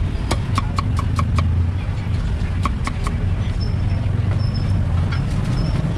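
Meat cleaver chopping roast pork and boiled pig intestines on a wooden chopping block: a quick run of about six chops in the first second and a half, then three more around three seconds in. Under it runs a steady low street rumble.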